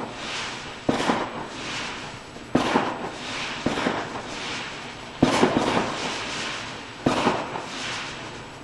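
Fireworks going off in the distance: five sharp bangs spaced a second and a half to two seconds apart, each followed by a fading crackle and rumble.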